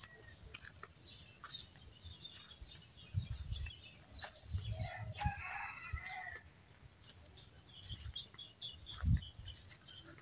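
A rooster crowing once, a call of about two seconds near the middle, with small birds chirping around it. A few dull low thumps come and go, the loudest near the end.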